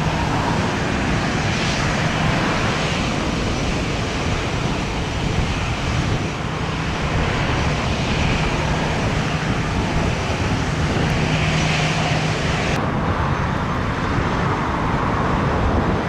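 Steady airport and road traffic noise: a constant rumble of vehicles and aircraft engines with a faint low engine hum. The high hiss drops away about thirteen seconds in.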